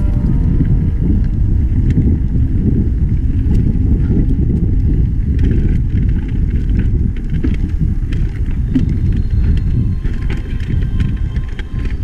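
Wind buffeting the microphone of a camera riding on a mountain bike, a steady low rumble, with scattered clicks and rattles of the bike running over a rough trail.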